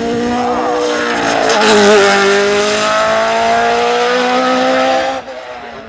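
Sports prototype race car's engine under full hill-climb effort. The note dips as the car slows for a hairpin, then climbs steadily as it accelerates away, and stops abruptly about five seconds in.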